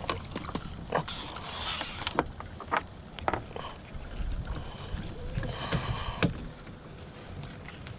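Handling noise on a small fishing boat: scattered knocks and clicks of gear and feet against the hull and deck, with a short rushing hiss, like water or a splash, about a second and a half in.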